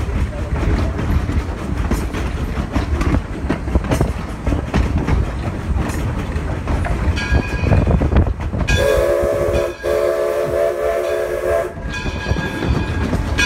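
Steam train running, heard from aboard: a steady low rumble with rail clicks. About nine seconds in, the locomotive gives one steady whistle blast of about three seconds. A high ringing comes in shortly before the whistle and again after it.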